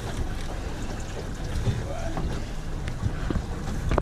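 Yamaha 115 outboard motor running slowly in gear, with wind buffeting the microphone and scattered small clicks and knocks.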